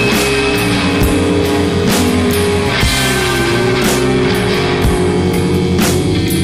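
Heavy rock music: electric guitars hold long chords over drums, with strong hits about once a second.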